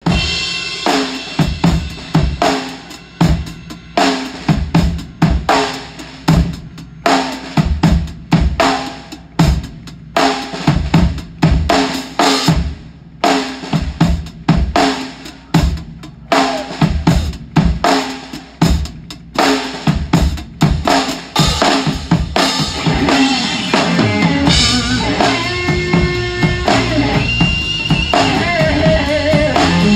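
A rock drum kit with a 26-inch bass drum and large ride cymbals, played in a stop-start pattern of bass drum, snare and cymbal hits. About three-quarters of the way through, the band's electric guitar and bass join with sustained notes under the drums.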